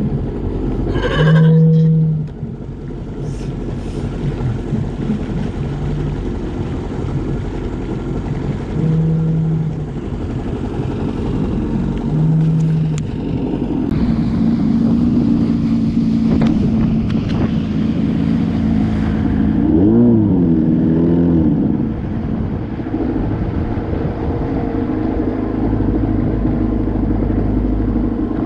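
Sea lions on a buoy calling with short low calls a few seconds apart, over an idling jet ski. About halfway through, the Yamaha WaveRunner's engine picks up and runs steadily, revving up and back down briefly later on.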